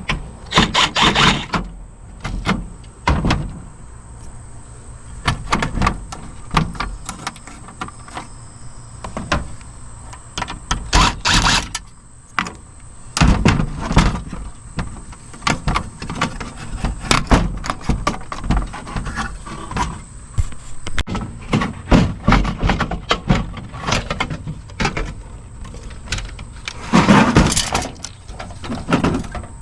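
Cassette deck being taken apart by hand: repeated knocks, clicks and scrapes of a tool and loose metal and plastic parts as screws holding its circuit board are worked out, with several louder bursts of clatter.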